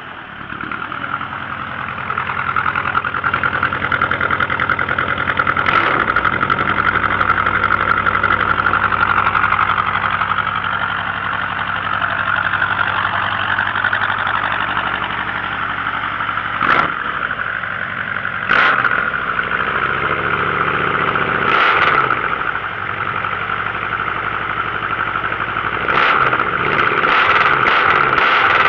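Engines of Rastrojero pickup trucks running and idling, growing louder over the first few seconds. A handful of short, sharp bangs break through the steady running, with a cluster of them near the end.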